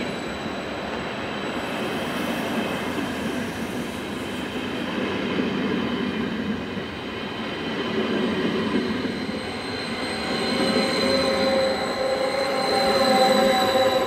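Stadler KISS double-deck electric multiple unit in motion: a steady rumble of wheels on rail with a thin high electric whine from the traction equipment. A further set of tones comes in and the sound grows louder toward the end.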